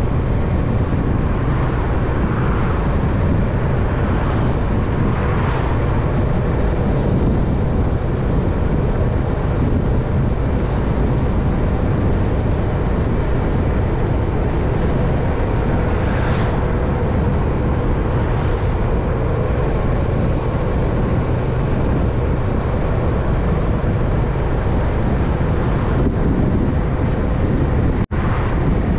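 Steady, loud wind rush and road rumble from riding a bike on the road, with a very brief cut in the sound about a second before the end.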